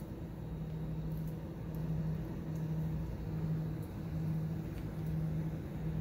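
A steady low mechanical hum, like a motor or fan running, with a few faint ticks over it.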